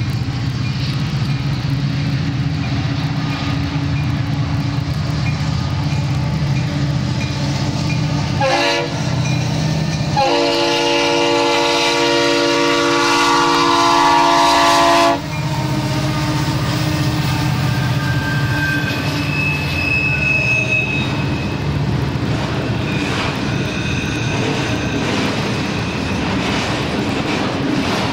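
Union Pacific diesel freight locomotives rumbling past. There is a brief horn toot about eight seconds in, then a long, steady horn blast for about five seconds that cuts off sharply, sounded for the grade crossing. After it comes the steady rumble and clatter of freight cars rolling by.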